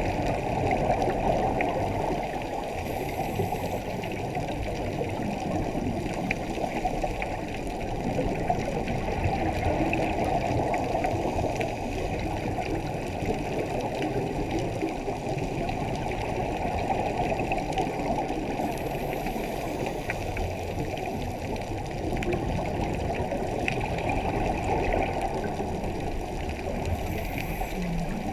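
Muffled, steady underwater rushing noise picked up by a camera in a waterproof housing, with a few faint clicks scattered through it.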